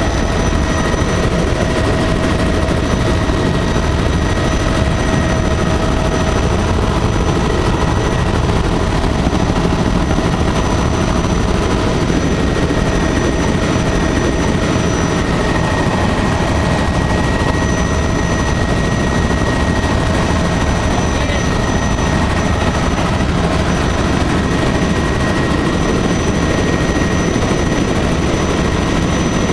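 Helicopter in cruising flight heard from inside the cabin: a loud, steady rumble of rotor and engine with a few steady high-pitched whine tones over it.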